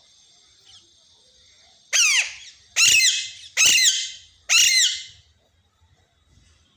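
Pet parrot giving four loud, harsh squawks in quick succession, a little under a second apart.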